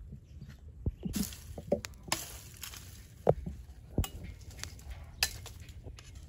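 Machete blade striking and cutting a thin wooden stick held in the hand: a series of sharp knocks and cracks, roughly two a second.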